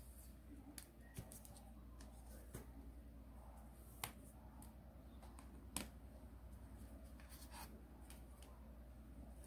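Square of origami paper being folded and creased by hand, faint paper rustles and scrapes, with two sharp ticks about four and six seconds in.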